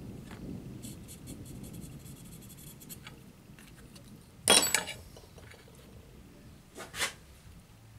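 A digital caliper and a small brass part clinking on a stone plate as the caliper is handled: a run of faint quick ticks, a loud clatter about halfway through as the caliper is picked up off the plate, and a shorter sharp click near the end.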